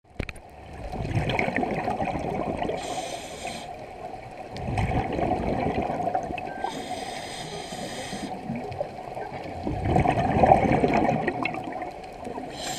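Scuba diver breathing through a regulator underwater: slow breaths, each a short hissing inhale and then a long, rumbling, bubbling exhale, three exhales in all.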